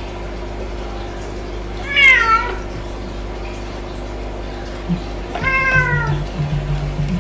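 A domestic cat meowing twice, about three and a half seconds apart; each meow is about half a second long and drops in pitch at the end.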